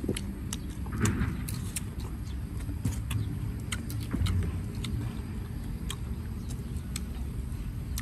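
Steady low wind rumble on the microphone, with scattered small clicks and crunches from hands tearing lettuce and people eating.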